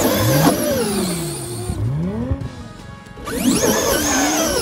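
Electric RC buggies accelerating hard up a sand dune: a high motor whine that sweeps up in pitch, twice, once at the start and again about three seconds in.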